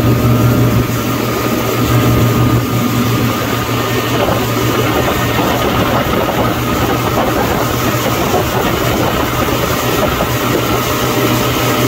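Motorboat engine running steadily under way, a deep hum, with the rush of water from its wake. The engine note eases slightly about a second in and comes back up near the end.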